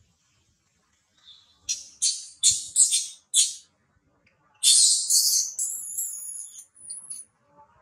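Infant long-tailed macaque screaming: five short, shrill squeals, then one longer, louder scream that trails off. These are a baby's distress cries at its mother refusing to let it nurse.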